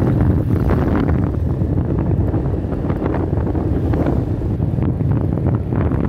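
Strong wind buffeting the microphone of a camera moving along on a vehicle: a dense, loud, gusty low rumble.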